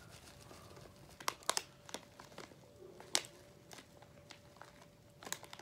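Plastic packet of dried hermit crab food crinkling as it is handled and the food is shaken out, with a few sharp crackles spread unevenly through.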